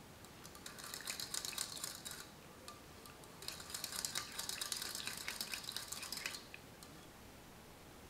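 A spoon stirring yeast into water in a glass measuring jug: light clinks and scraping against the glass in two short bouts, the second longer, then it stops.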